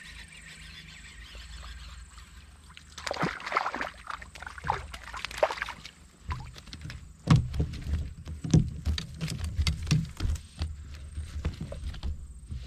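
A hooked rainbow trout splashing at the surface beside a kayak as it is reeled in, then a run of knocks and thumps on the plastic kayak as the fish is swung aboard and landed.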